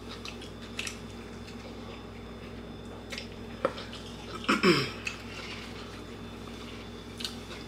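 Quiet eating sounds from a burger eaten with the fingers off a plate: a few small wet clicks and smacks. About four and a half seconds in there is a short vocal 'mm' that falls in pitch.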